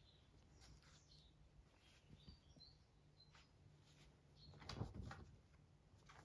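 Near silence, with a few faint, short, high chirps and a soft rustle about five seconds in as the small dog shifts its weight and gets up on the lap.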